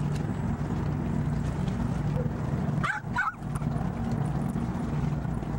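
Steady low engine drone, with two short, high rising chirps about three seconds in.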